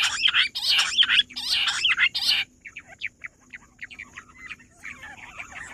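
Rock bush quail calling: a loud run of rapid, chattering whistled notes that stops abruptly about two and a half seconds in. Fainter scattered short notes follow over a thin, steady, high-pitched tone.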